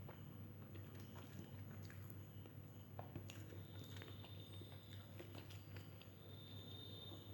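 Faint close-miked chewing and mouth sounds of a person eating, with small scattered clicks, over a steady low hum.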